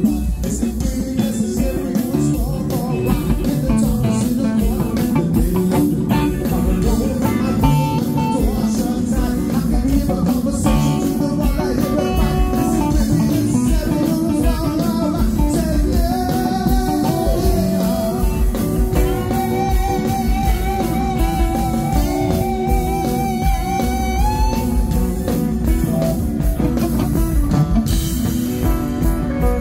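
Live rock band playing loud through the stage PA: electric guitars, bass and drums, with a singer's voice over them.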